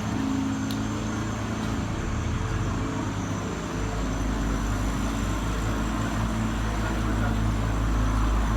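A motor running steadily with a low drone, its lowest rumble growing stronger about four seconds in.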